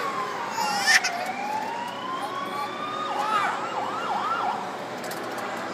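Electronic siren sound effect from a kiddie-ride fire truck's speaker: a slow wail that falls and then rises again, then a second or so of quick up-and-down warbling yelps. A short, louder burst comes about a second in.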